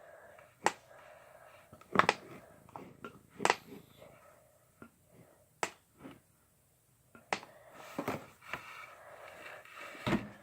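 Scattered sharp clicks and knocks of a plastic water bottle and funnel being handled while glue is poured, about half a dozen, the loudest about 2 and 3.5 seconds in.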